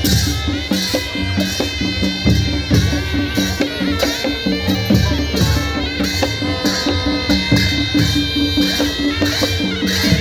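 Loud music with a steady drum beat and long held melodic tones.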